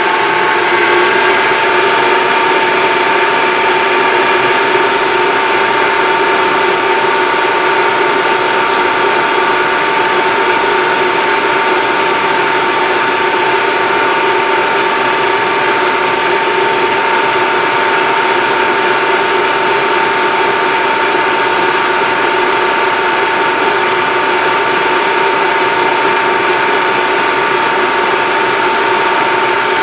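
Farm tractor running at road speed, heard from inside its cab: steady engine and drivetrain noise with a constant whine held at one pitch.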